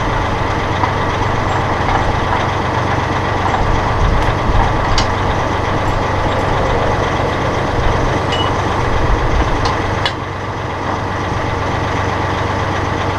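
Massey Ferguson 1742 compact tractor's diesel engine idling steadily, its level dropping slightly about ten seconds in, with a few faint clicks.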